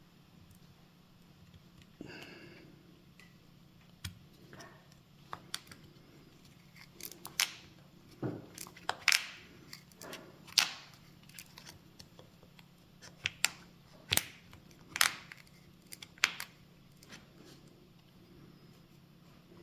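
Plastic pry tool clicking and scraping against a Nintendo Switch's old battery as it is levered out, with irregular sharp clicks that come thicker and louder in the middle. The battery is held down by strong adhesive and will not come loose.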